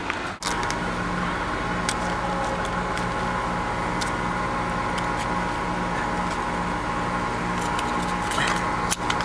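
Steady mechanical hum of nearby machinery, a low drone that wavers about once or twice a second over a higher steady whine, with a few faint clicks.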